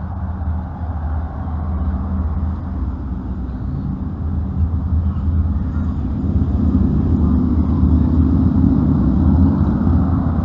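A vehicle engine running low and steady, growing louder in the second half.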